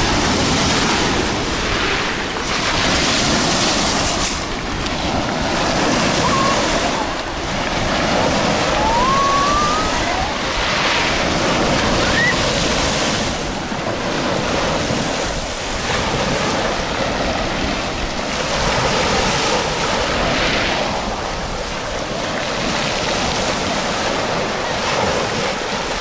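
Black Sea surf on a pebble beach: small waves breaking and washing up the shore every few seconds, each surge swelling into a hiss of foam and draining back over the pebbles.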